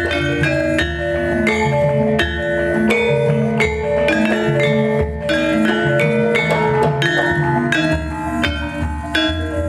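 Javanese gamelan ensemble playing: bronze-keyed metallophones struck with mallets in a steady running melody, each note ringing on under the next, with frequent percussive strikes.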